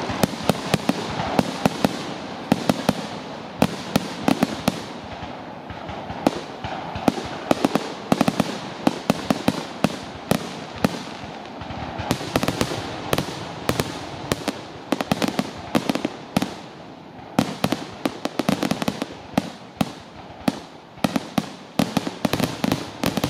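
Aerial fireworks shells bursting in quick succession: many sharp bangs, often several a second, with a continuous wash of noise between them.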